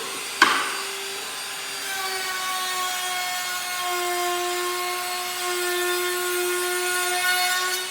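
Trim router with a round-over bit running at speed and cutting a rounded edge along a wooden board, a steady high whine, with a sharp knock about half a second in.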